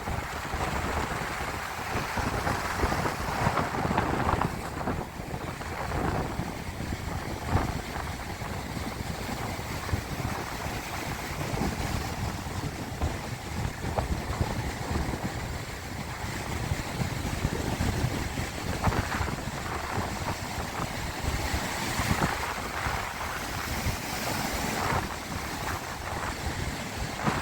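Sea waves washing, with wind gusting on the microphone as a low, uneven rumble.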